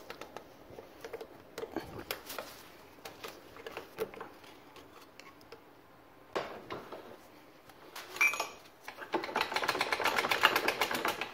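Hand tools working on a corroded outboard gearcase's shift rod connector: scattered metallic clicks and taps, a brief squeak, then a rapid run of clicking about nine seconds in.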